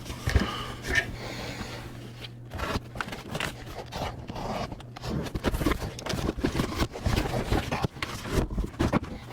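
Cardboard packaging being opened and handled by hand: a run of scrapes, rustles and knocks, busier from about halfway through, over a steady low hum.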